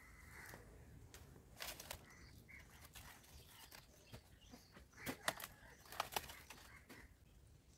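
Banana leaves rustling and tearing as they are pulled from the plant, a few faint crackling snaps, the loudest a little past the middle.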